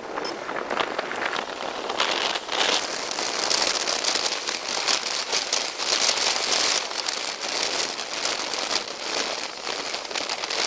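Steady, crackly rush of wind and airflow over the microphone from a moving two-wheeler.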